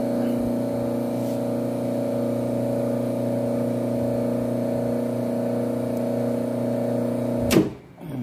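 Single-phase electric motor running with a steady electrical hum. Near the end a sharp click comes as the overload trips it on a fault, and the hum falls in pitch and dies away as the motor loses power and winds down.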